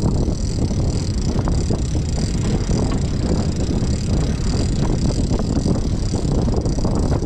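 Wind buffeting the microphone on a boat in a choppy sea: a steady, heavy rumble.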